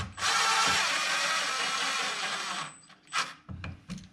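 Cordless impact driver driving a screw into wood, running for about two and a half seconds with a rapid hammering rattle and a thin high motor whine, then stopping. A couple of short knocks follow.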